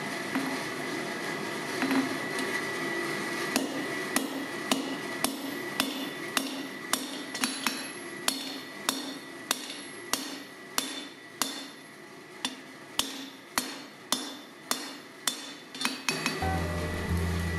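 Hand hammer striking hot steel on an anvil while forging tongs, in a steady rhythm of about two blows a second over a continuous background hum. Music comes in near the end.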